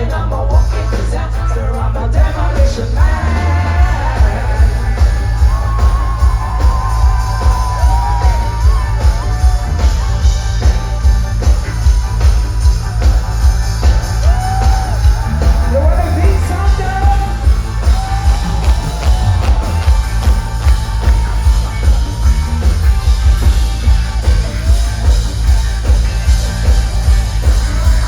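Live band music with a heavy, pulsing bass beat and a woman's voice singing over it, the vocal line sliding up and down in pitch.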